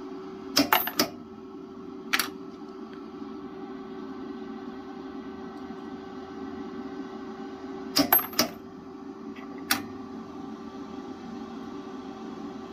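Induction brass annealer running with a steady hum. Sharp metallic clicks and clinks come twice: a quick cluster, then a single click about a second later, about a second in and again about eight seconds in. This is the machine dropping a freshly annealed .223 Lapua case and the next case dropping into the coil, between heating cycles.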